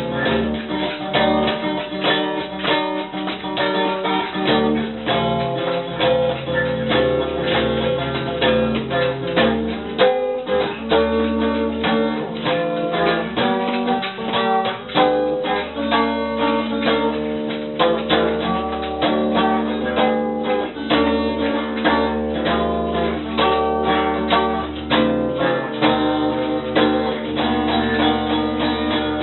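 Guitar playing: quick runs of picked notes over sustained lower notes.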